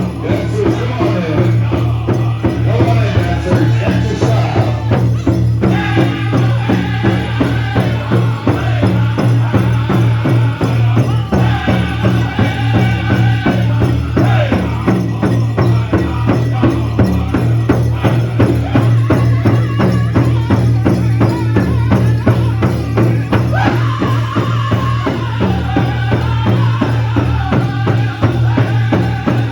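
Powwow drum group beating one large shared drum in a steady, even rhythm while the drummers sing together over it.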